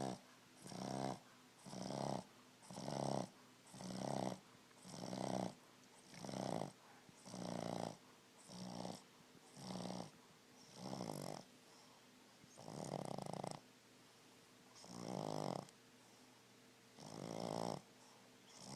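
A sleeping dog snoring in a steady rhythm, about one snore a second at first, then slower, longer snores every two seconds or so.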